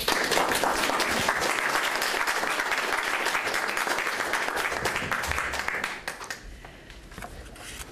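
Audience applause, many hands clapping at once, dying away about six seconds in.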